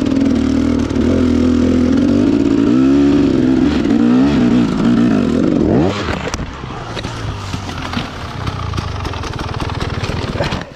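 Enduro dirt bike engine running hard under throttle, its pitch wavering. About six seconds in it revs up sharply, then drops to lower, uneven running with scattered clattering knocks.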